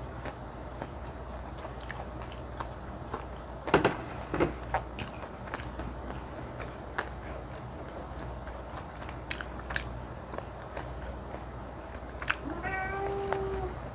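Close-miked eating sounds of spicy mala xiang guo: wet chewing and bites, with wooden chopsticks clicking and knocking against the plastic container, loudest about four seconds in. Near the end a short pitched hum slides up and holds for about a second.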